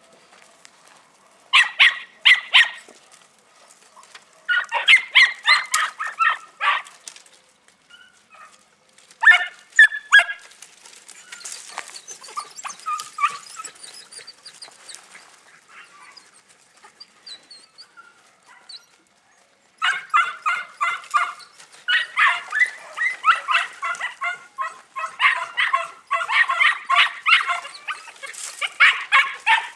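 Podenco puppies yapping with high-pitched barks, several a second, in short bursts, then barking almost without a break from about twenty seconds in.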